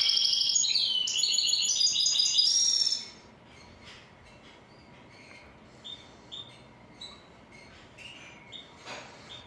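Goldfinch hybrid (mule) singing a loud, fast, twittering song of rapid varied notes that breaks off about three seconds in, followed by faint, short chirps.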